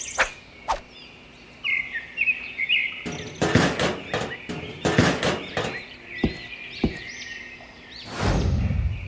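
A hard plastic pond basin being pushed and settled into sand: a cluster of scrapes and dull thunks about three to six seconds in, with a few sharp clicks, over birds chirping in the background. A short rush of noise near the end.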